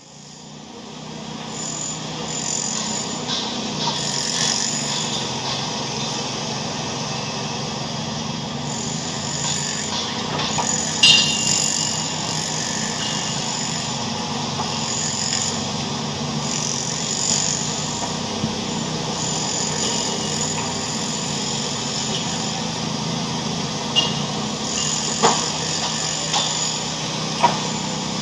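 A racket of mixed mechanical noise: a dense, steady din with scattered sharp knocks and clatters, fading in over the first two seconds.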